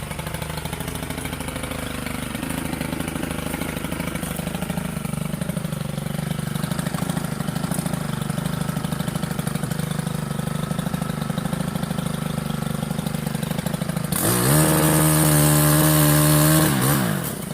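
Small gas engine of a Stihl KombiMotor pole-saw tool idling steadily. Near the end it is throttled up sharply, held at high revs for about two and a half seconds, then drops back to idle.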